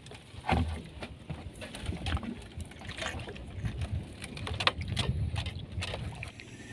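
Irregular knocks and bumps on a small wooden fishing boat over a low rumble, the sound of the boat and its catch being moved about and handled.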